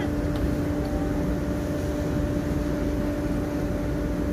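Boat engine running steadily: a constant hum over a low rumble, unchanged throughout.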